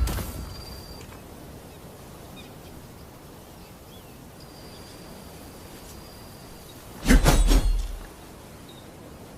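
Naginata combat sound effect: a quick cluster of sharp strikes lasting about a second, about seven seconds in, over a quiet ambience bed with a faint high steady tone. The tail of an earlier strike fades out at the start.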